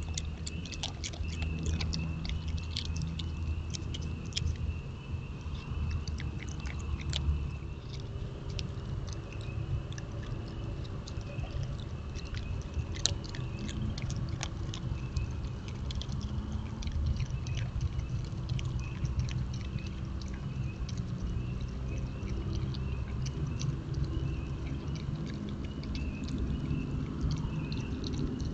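Virginia opossum chewing and crunching food at a feeder: quick irregular clicks and crunches, thickest in the first third and again about halfway, over a steady high-pitched drone.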